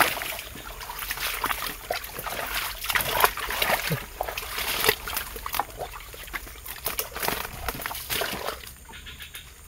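Irregular splashing and sloshing of feet wading through shallow, muddy creek water, with scattered crackles, dying down near the end.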